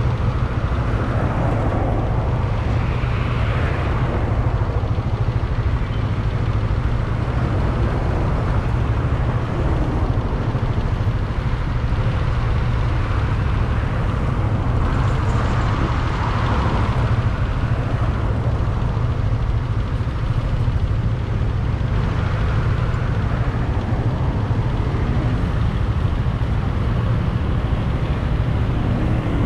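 Motor scooter riding through street traffic: a steady low rumble, with swells of other vehicles passing now and then.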